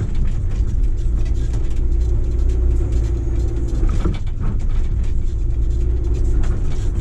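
Hitachi crawler excavator's diesel engine running steadily under digging load, with rocks scraping and knocking against the bucket, most clearly about four seconds in.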